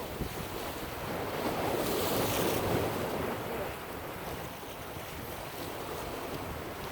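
Ocean surf washing in steadily with wind buffeting the microphone; one wave surges louder about two seconds in, then subsides.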